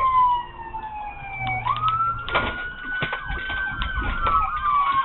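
Police car siren on a slow wail, its pitch gliding down and then up and down in long sweeps. About four seconds in it switches to a rapid yelp. A few short knocks are heard along the way.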